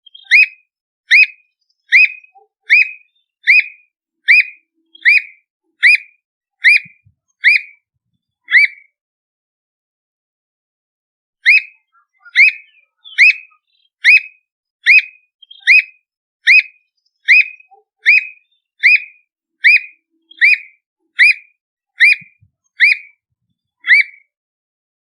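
Squirrel cuckoo singing: a long series of loud, evenly spaced whistled notes, a little over one a second. The series breaks off for about three seconds midway, then starts again.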